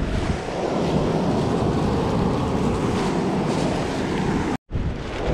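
Steady rushing of surf washing onto the sand, mixed with wind buffeting the microphone. The sound cuts out for an instant near the end.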